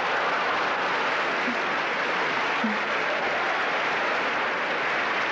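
Theatre audience applauding and laughing at a comedian's punchline, a steady even wash of clapping.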